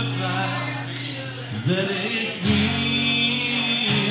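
Live country music on a strummed acoustic guitar, the chord changing about every second and a half, with a hard strum at each change.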